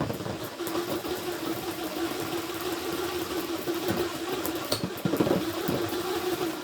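Three metal nuts whirling around inside an inflated balloon as it is swirled, making a steady buzzing hum that sounds most like a fly, with a few sharper clicks about four to five seconds in.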